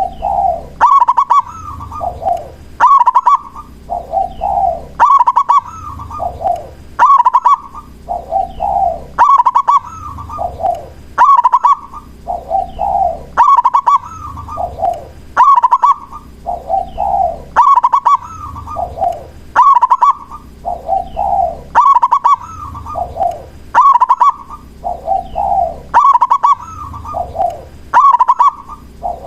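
Zebra dove (perkutut) singing, the same cooing phrase repeated over and over about every two seconds: a quick stutter of short notes leading into rolling coos that step down in pitch.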